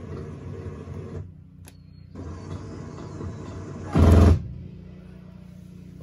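Atwood electric camper jack motor running as the passenger rear jack is driven from the remote, a steady mechanical hum that drops back about a second in and starts again about two seconds in. About four seconds in there is a short, loud clunk, after which a fainter steady hum remains.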